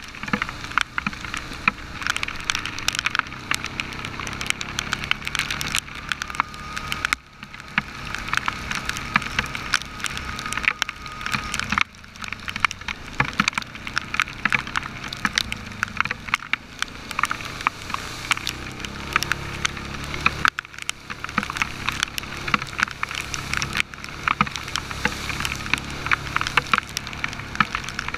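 Dense, rapid clicking of heavy rain and trail spray striking a helmet-mounted camera, over the steady running of an ATV engine under way on the trail.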